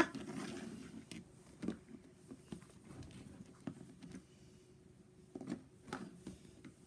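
Plastic toy dinosaur figures being handled and set down: scattered light clicks and knocks, a few louder ones near the middle and the end.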